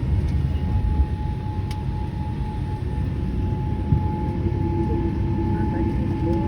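Cabin noise inside a Boeing 787-8 after landing: a steady low rumble with a steady whine over it, and a second, lower whine joining about four and a half seconds in.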